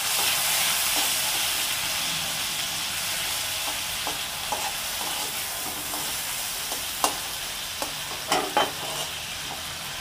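Chopped tomatoes and salt sizzling in hot mustard oil in a kadai, with the hiss strongest at the start and easing a little. A metal spatula stirs them, knocking and scraping against the pan a few times near the end.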